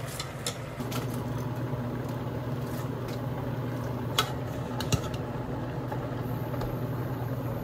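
Cut cabbage tipped from a glass bowl into a stainless steel pot and stirred with a spoon, with a couple of sharp knocks about four and five seconds in. A steady low appliance hum runs underneath from about a second in.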